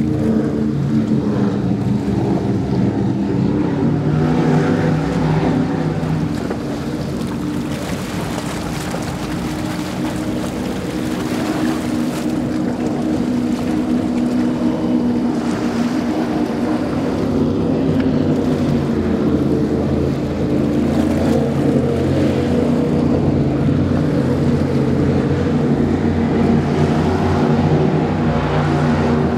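High-performance powerboats running fast past one after another, their engines giving a loud, steady drone with the rush of water from the hulls.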